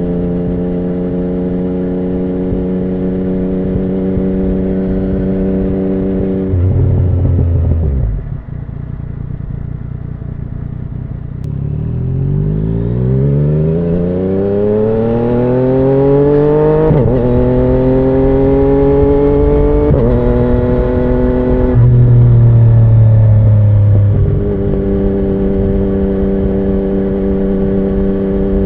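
2017 Yamaha MT-09's 847 cc inline-three through an Akrapovic carbon full exhaust, running steadily, then accelerating with the pitch rising through two quick upshifts. It eases off and settles back to a steady note near the end.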